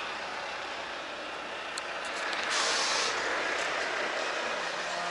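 Volvo truck's air brakes letting out a short, loud hiss of compressed air about two and a half seconds in, after a few light clicks, over the steady running noise of the truck.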